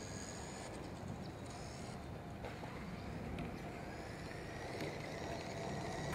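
Small battery-powered RC cars' electric motors whining faintly, their pitch slowly rising and falling as the cars are driven, over steady outdoor background noise.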